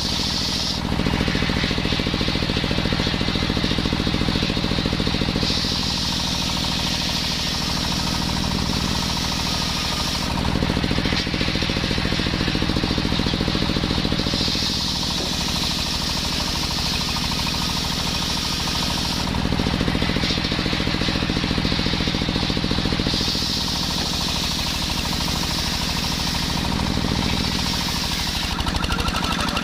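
Engine-driven circular saw running steadily while sawing coconut-palm wood. Its sound changes in a repeating cycle about every nine seconds, a little louder in some phases than others, as the load on the blade changes.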